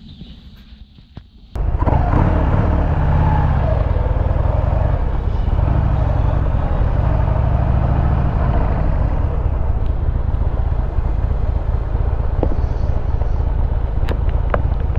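Motorcycle engine running on the move with heavy wind noise, starting abruptly about a second and a half in. The engine note rises and falls a few times as it accelerates, then runs steadily.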